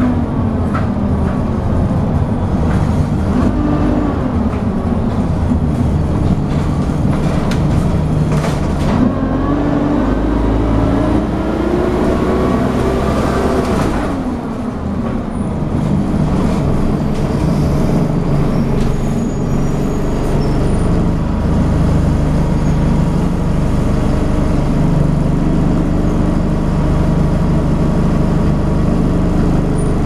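Diesel engine of a Dennis Dart SLF bus with Alexander Enviro 200 body, heard from inside the saloon and driven hard. Its note climbs for several seconds mid-way, drops suddenly at a gear change, then runs on steady and low. Body rattles are heard through the first part.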